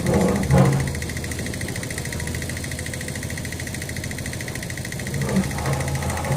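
Backhoe's diesel engine running, loud and busy just after the start, settling to a steady idle, then picking up again near the end.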